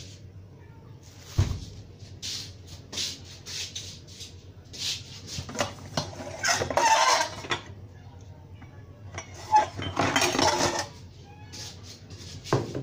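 Rustling and clattering of plastic bags and dishes on a table, in repeated short scrapes and crinkles. It is loudest in two longer stretches past the middle, with a single thump about a second and a half in.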